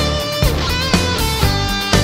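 Rock background music: a sustained guitar melody with notes that slide in pitch, over a steady beat of about two strikes a second.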